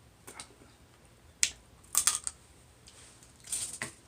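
Close-up eating sounds of a seafood boil: a handful of short, sharp clicks and smacks, with a cluster about two seconds in and another near the end.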